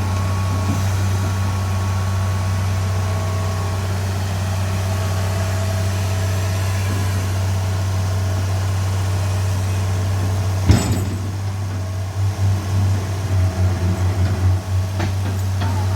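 Excavator diesel engine idling steadily, with one sharp knock about eleven seconds in.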